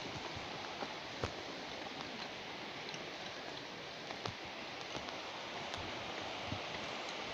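Steady rushing of a large waterfall, with a few light clicks and knocks scattered through it.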